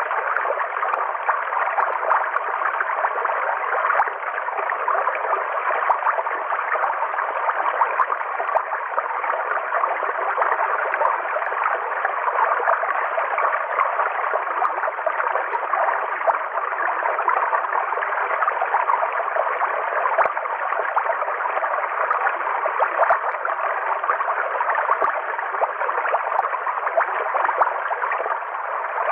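River water flowing and gurgling steadily, an even rushing with no change throughout.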